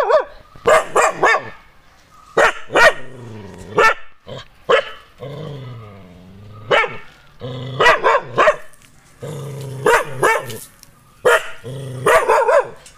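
Nadan (Kerala native) dog barking aggressively in repeated bursts of several sharp barks, with low drawn-out growling between the bursts: guarding against strangers.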